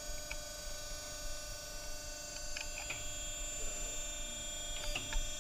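Steady electrical hum from a powered-up hydraulic hose swaging machine, with a few light metallic clicks about two and a half seconds in and again near the end as a crimping die is drawn out of the die head with its handling tool.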